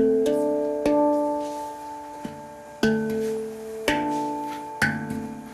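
Hang (steel handpan) struck one note at a time, slowly picking out the first phrase of a simple melody. About five separate notes ring and fade, each a clear pitched tone.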